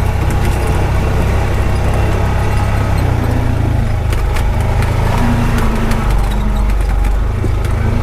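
Honda Pioneer 520 side-by-side driving over a rough track, its single-cylinder engine running steadily with the engine note changing about three seconds in and again around six seconds. Scattered light clicks and knocks sound over the engine.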